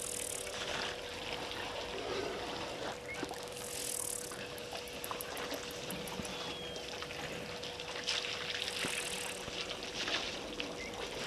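Water trickling and splashing, with a faint steady hum underneath and a short high-pitched buzzing call that comes back every few seconds.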